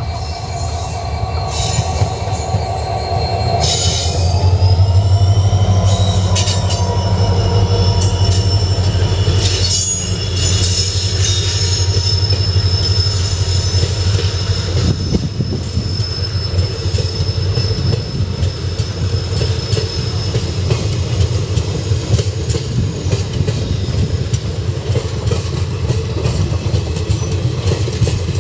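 Train running past on the rails: a heavy low rumble with wheels clattering over the rail joints, and high-pitched wheel squeal in several steady tones that slide up in pitch about four seconds in and die away after about twenty seconds.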